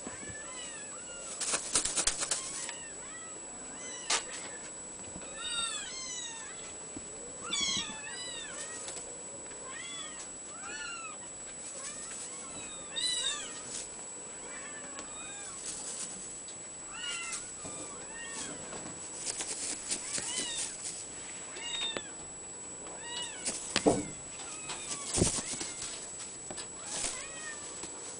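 Abyssinian kitten mewing over and over in short, high mews that rise and fall, often several in quick runs. A few sharp knocks come in between, the loudest two close together near the end.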